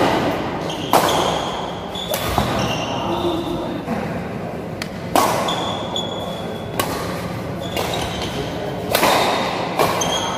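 Badminton rackets striking a shuttlecock back and forth in a rally, several sharp echoing hits, with short high squeaks of court shoes between the strokes.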